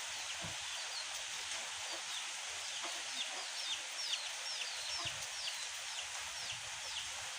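Chicks peeping: many short, high, falling cheeps over a steady hiss, coming thicker and faster from about three seconds in.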